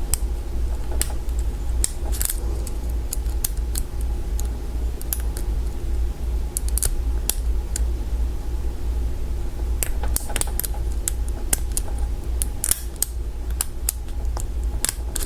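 Steel hook pick and tension wrench working the pins of a Kwikset mortise lock cylinder during single pin picking: scattered, irregular small metallic clicks. A steady low hum runs underneath.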